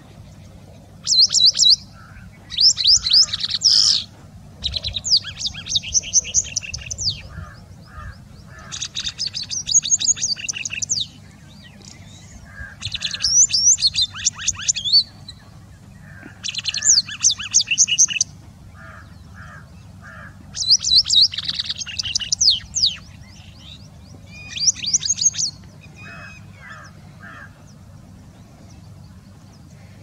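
White-browed wagtail singing: about eight bursts of rapid, high chirping notes, each burst one to two and a half seconds long, with pauses of a second or two between them, over a faint low background rumble. The song falls silent a few seconds before the end.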